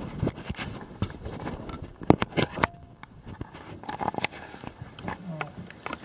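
Handling noise: irregular clicks, knocks and scraping as the camera is worked into the tight space of an HVAC air handler cabinet, rubbing and bumping against it.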